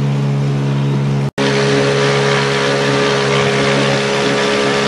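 Small outboard motor on a sailboat running at a steady pitch, a constant drone with water and wind noise over it. There is a very short break about a second in, and after it the water and wind noise is louder.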